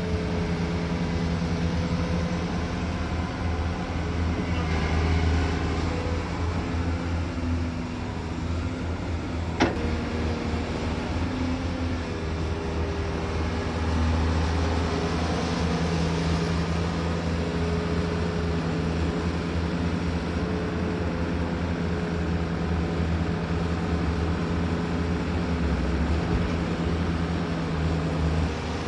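Diesel engine of heavy construction machinery running steadily, its note rising and falling slightly as it works, with a single sharp knock about ten seconds in.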